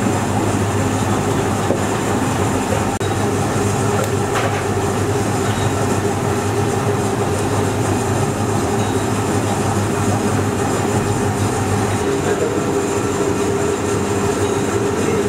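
Steady mechanical hum and rumble of running machinery, even in level, with a few constant tones through it.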